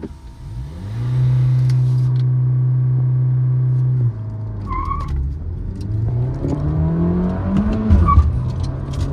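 Volkswagen 1.5 TSI turbocharged four-cylinder engine at a drag-race launch. It is revved and held at steady high revs for about three seconds. The revs then drop as the clutch is let out, and the engine pulls hard with revs climbing, with a quick gear change near the end.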